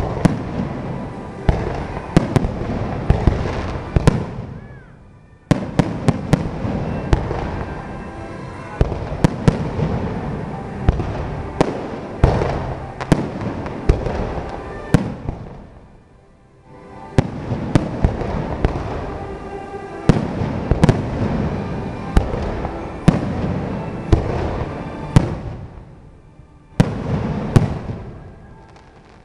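Fireworks display: a dense run of aerial shell bursts, bangs and crackling. It dies down briefly three times, about five, sixteen and twenty-six seconds in, and starts again each time with a sudden loud bang.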